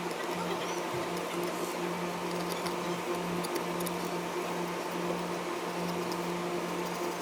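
A steady low electrical hum, like a small fan or motor running, with faint scattered light clicks over it.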